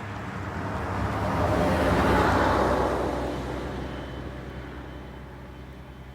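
A bus driving past: its engine hum and road noise swell to a peak about two seconds in, then fade away.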